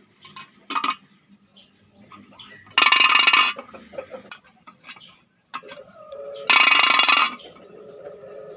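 Homemade tin-can alarm going off: a coin, whirled by twisted rubber bands, rattles rapidly against the can in two loud bursts under a second each, about three and a half seconds apart.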